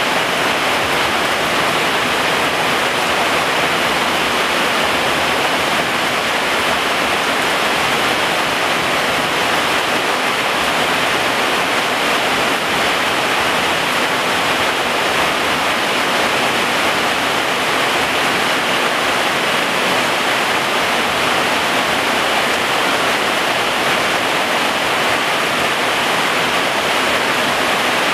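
Heavy rain falling steadily on garden foliage and ground: an even, unbroken hiss that neither builds nor eases.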